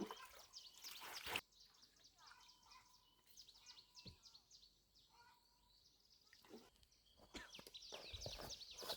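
Quiet outdoor rural ambience with faint, rapid, high-pitched chirping throughout. A louder rustling noise fills the first second and a half and returns near the end.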